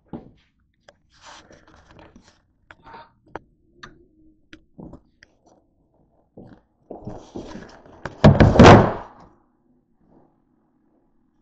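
Scattered light clicks and rustles of movement, then a loud thunk about eight seconds in, the sound of a door swinging shut; a faint steady hum remains afterwards.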